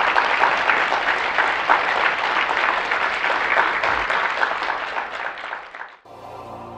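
Audience applauding, many hands clapping densely, cut off abruptly about six seconds in, where outro music begins.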